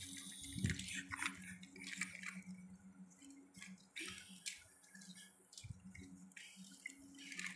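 Light knocks and scrapes of dry wooden sticks being handled and laid onto a plastic toy dump truck, over a steady low hum.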